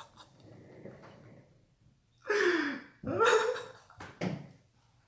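A person laughing in three short bursts with gasps, breaking into helpless laughter.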